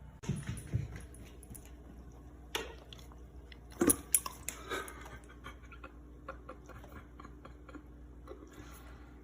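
Dog drinking and tasting sparkling water: wet mouth smacks, licks and clicks, loudest about four seconds in, then a run of small clicking licks.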